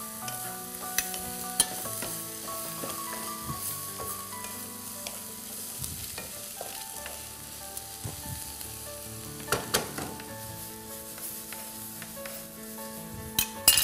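Onions frying in a pan on a gas hob, a steady sizzle, with a few sharp clicks and taps, the loudest near the end. Soft background music with held notes runs underneath.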